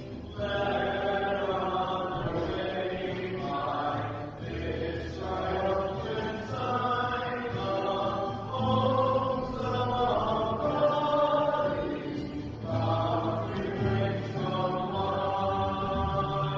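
A slow hymn sung by voices, with long held notes that change every second or so and short breaks between phrases.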